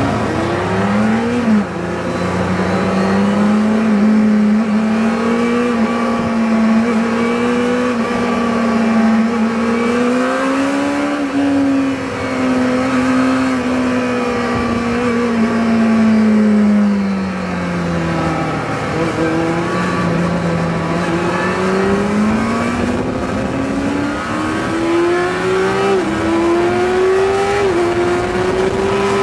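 Yamaha R6's 600 cc inline-four engine heard on board, rising in revs as the bike pulls away about a second and a half in, then running at moderate, gently varying revs. The revs fall off around eighteen seconds in, then climb again in short stepped rises through upshifts near the end.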